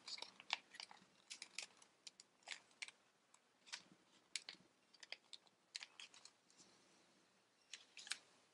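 Faint, irregular crackles and rustles of a sheet of origami paper being folded and creased by hand, with a short lull about three-quarters of the way through.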